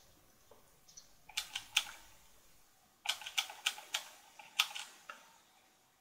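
Computer keyboard keys tapped rapidly in three short flurries, about a second in, around three seconds and again near the end: a function key hammered to bring up the PC's boot menu as it restarts.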